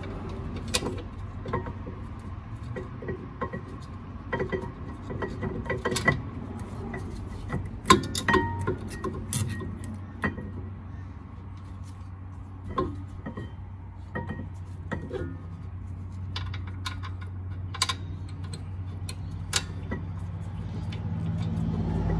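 Metal clinking and tapping as a rear brake caliper, without its pads, is handled and lined up over the rotor and bracket. The sharp knocks come irregularly, the loudest about eight seconds in, over a steady low hum.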